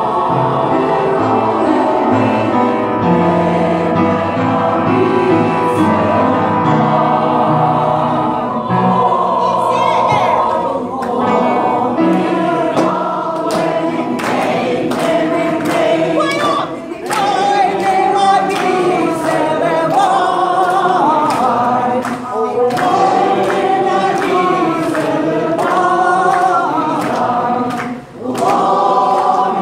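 Mixed choir of men and women singing in parts, a medley of Jewish songs. The choir breaks off for a moment near the end.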